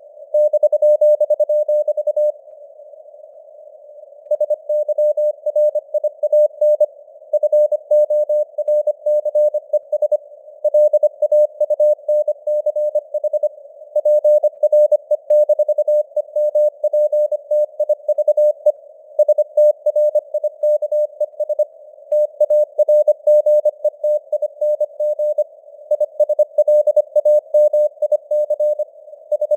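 Morse code (CW) sent at 25 words per minute: a single steady tone keyed on and off in rapid dots and dashes, in groups with short pauses between words. It sits over a faint hiss of simulated radio noise.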